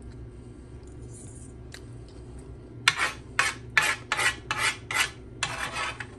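A metal spoon scraping against a dish while spooning barbecue sauce: six short scrapes starting about three seconds in, then one longer scrape.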